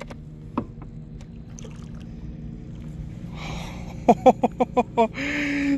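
NewPort 36-lb-thrust electric trolling motor running with a steady faint hum while its prop churns the water, growing gradually louder. Near the end a man laughs in a quick run of short bursts.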